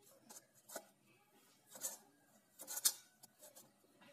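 Hands pulling off and rolling pieces of wheat-flour dough in a steel bowl: a few soft rubbing and scraping sounds, the loudest about three seconds in.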